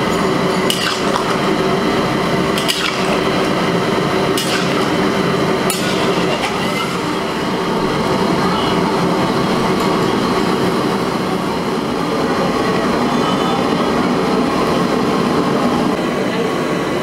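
Chicken curry boiling hard in a large aluminium kadai, a steady dense bubbling. In the first six seconds a metal ladle clinks against the pan a few times.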